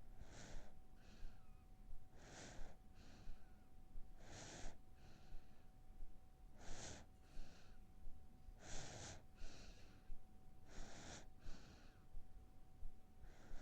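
A sleeping baby breathing slowly and evenly, seven soft airy breaths about two seconds apart, each with a louder part followed by a softer one. A faint steady hum sits underneath.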